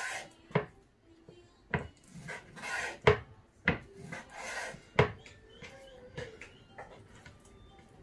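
Large kitchen knife slicing raw chicken breast into strips on a wooden chopping board: about six sharp knocks of the blade striking the board, with scraping between strokes. The knocks stop near the end.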